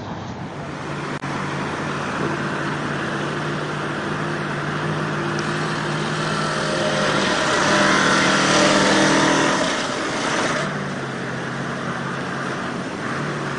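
Heavy off-road truck's engine labouring as it fords a fast-flowing flooded river, with rushing water over it. The revs climb and the sound grows louder past the middle, then eases back near the end.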